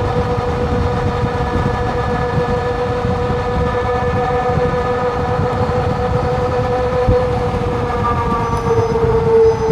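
Electric bike motor whining steadily under power, a hum of several even tones at a constant pitch that dips slightly near the end, over wind rumble on the microphone.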